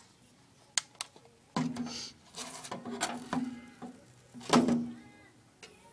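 Clicks, scraping and rattling of metal lawn mower brake parts being handled, with a louder clatter about four and a half seconds in.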